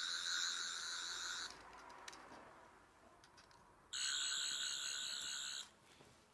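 Toy 12th Doctor's sonic screwdriver playing its electronic sound effects through its small speaker: a high, warbling whine about a second and a half long, then after a short pause a second warbling effect lasting nearly two seconds.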